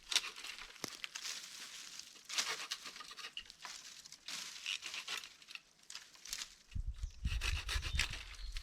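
Wood and brush rubbing and scraping in irregular strokes a second or two apart, with a low rumble from about seven seconds in.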